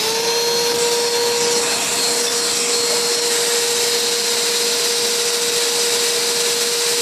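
Emerson vacuum cleaner running at full speed, with a steady whine over rushing air. The motor has just been switched on and settles to speed in the first half second, with a stick jammed in at the drive belt.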